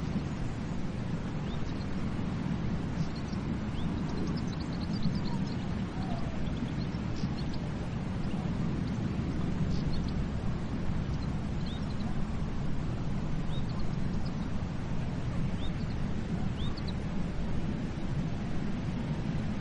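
Ocean surf washing on a beach as a steady, even rush, with faint short high bird chirps scattered through it.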